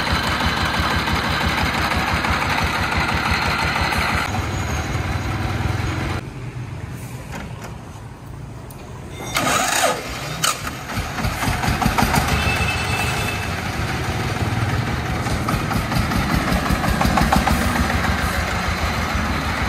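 Single-cylinder diesel engine of a công nông three-wheeled truck (a 24 hp 'máy nổ') running with a fast, even beat. It drops quieter for a few seconds around the middle, a sharp sound follows, and then it runs louder again.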